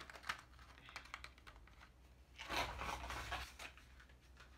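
Small clicks and crinkles of a plastic false-eyelash tray being handled, then a louder rustling about two and a half seconds in as the person gets up from the seat.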